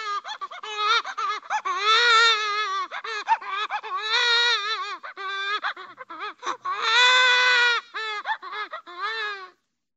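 Cartoon baby crying sound effect: a high-pitched voice wailing with wavering pitch, broken into short sobs between a few longer wails. It cuts off abruptly near the end.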